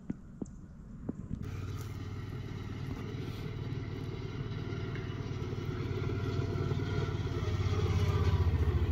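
A few faint clicks, then about a second and a half in a motor vehicle engine sets in abruptly and runs steadily, growing louder toward the end.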